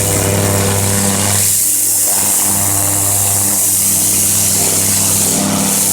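Pressure washer running with its spray hissing steadily, washing down a stone grinder; the machine's tone eases briefly about two seconds in.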